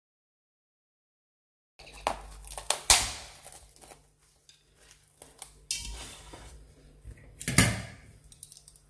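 Silent for nearly two seconds, then kitchenware being handled: a glass bowl and a frying pan knocking and clinking against each other and the counter, in a series of separate sharp clinks.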